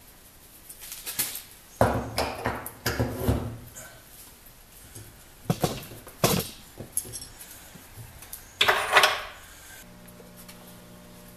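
Metal clanks and rattles of welding gear being handled, in several bursts, loudest near the middle and just before the end. About ten seconds in, a steady electrical hum starts.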